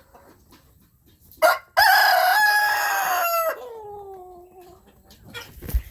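Rooster crowing once, starting about a second and a half in: a short first note, a long loud held note, then a drawn-out tail that falls in pitch and fades.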